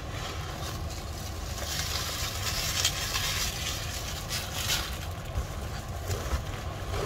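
Plastic bubble wrap and a padded plastic mailer rustling and crinkling as they are handled, loudest in stretches about two to three seconds in and again near four and a half seconds, over a steady low rumble.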